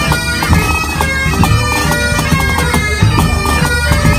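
Pipe band playing: several Highland bagpipes sound a tune over their steady drones, with drums beating under them.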